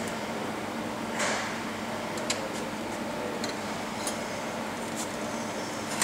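Light metallic clinks and ticks of hand tools on a motorcycle exhaust, with a short scrape about a second in and a few sharp taps after it, over a steady low workshop hum.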